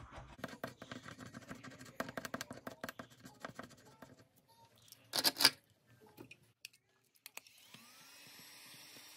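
A scratch-off card scraped with a pen-style scratcher tool: a quick run of small scratching strokes, with one brief louder burst about five seconds in. Near the end a small handheld motor whirs up and runs steadily.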